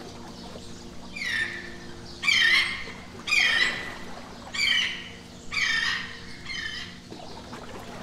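A bird's harsh, squawking call repeated six times, about once a second, each call falling in pitch, over a steady low drone.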